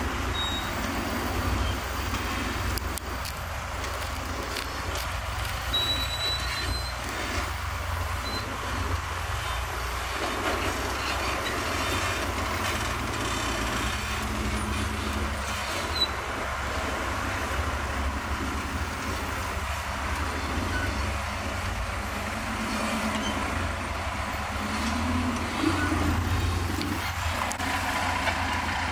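Off-road vehicle engines running low and steady at crawling pace. There is a sharp knock about halfway through, and an engine revs up briefly a few seconds before the end.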